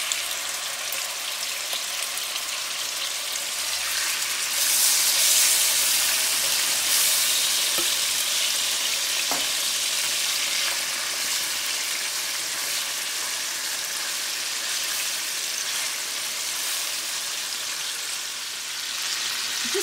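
Marinated pork loin steaks frying in a pan over medium heat, sizzling steadily in the fat rendered out of the pork. The sizzle grows louder about four to five seconds in, then settles.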